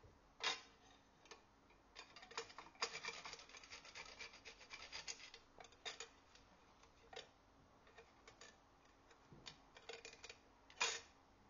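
Nutmeg being grated on a stainless steel hand grater: faint, irregular rasping strokes, thickest a few seconds in, with a sharp knock about half a second in and another near the end.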